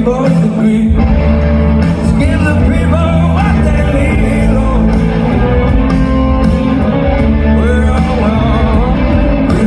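Live rock band playing, with a male lead vocal over electric guitars, keyboard and drums, heard from the audience in a large hall.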